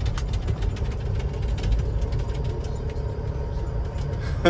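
Peterbilt semi truck's diesel engine running steadily at low speed, heard from inside the cab as a low rumble as the truck slows and turns in.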